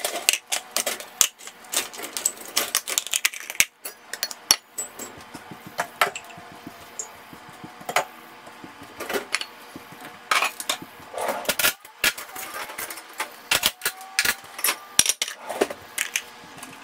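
Plastic food storage containers with clip-on lids clattering and knocking on a hard countertop as they are handled and stacked, a long run of sharp, irregular clicks and knocks.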